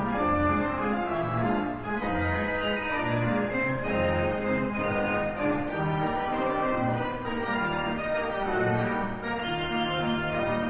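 Instrumental music with held, organ-like chords over a bass line that changes about once a second.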